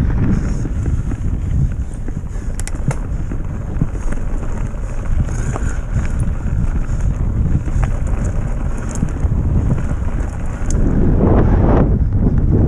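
Mountain bike rolling fast over a gravel forest track: wind buffeting the action camera's microphone over the rumble of tyres on gravel, with scattered clicks and rattles. The rumble grows louder near the end.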